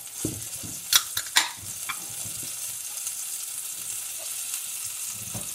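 Steady high sizzling hiss of food frying in a pan, with a few sharp clicks about a second in.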